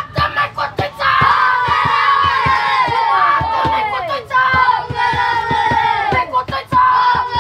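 A group of children chanting a team cheer in unison, drawing out long notes that drop in pitch about three seconds in, over rhythmic claps several times a second.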